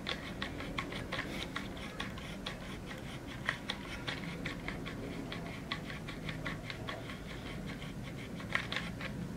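A plastic grabber tool scratching a cat's fur, making a steady run of short clicking scratches about three or four a second.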